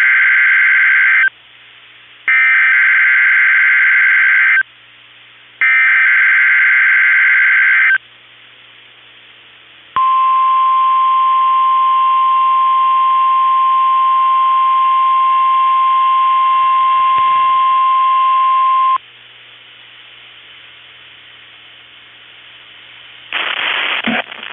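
NOAA Weather Radio emergency alert test. Three roughly two-second bursts of the SAME digital header's data tones sound first, the first already under way. About ten seconds in, the steady 1050 Hz warning alarm tone starts and holds for about nine seconds. Faint receiver hiss follows.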